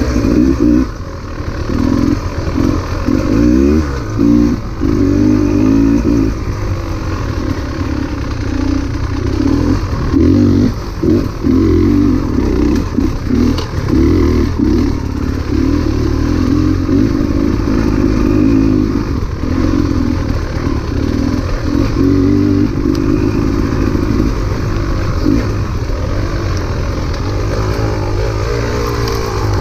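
Beta 300 RR two-stroke enduro motorcycle engine revving up and down as the throttle is repeatedly opened and shut, with many short dips and surges.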